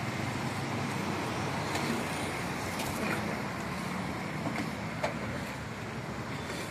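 Steady roadside traffic noise, with a few faint clinks about two, three and five seconds in.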